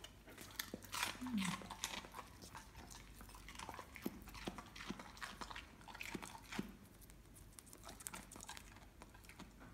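A Weimaraner snapping up and crunching pieces of raw vegetable, a quick irregular run of crisp bites and chews that thins out near the end. A short vocal sound comes about a second and a half in.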